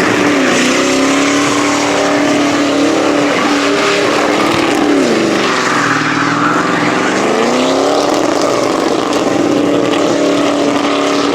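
Pickup truck engine, a Ford Ranger's, held at high revs in a burnout, the pitch dipping briefly twice before climbing back, over a steady hiss of spinning tyres.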